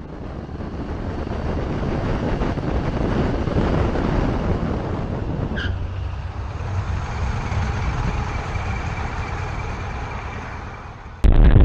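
Road noise of cars moving at speed on a highway: a rushing tyre and engine sound that swells over the first few seconds, with a brief high chirp about halfway and a thin steady whine after it. Near the end it cuts off abruptly into a louder, different road sound.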